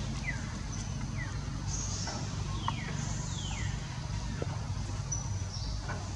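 Outdoor ambience: a steady low rumble under about four short, high chirps that each fall in pitch, from a bird or a young monkey, with a thin high-pitched buzz that comes and goes.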